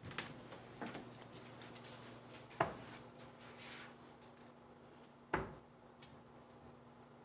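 Darts striking a dartboard: two short sharp hits about three seconds apart, with a fainter knock about a second in, over a low room hum.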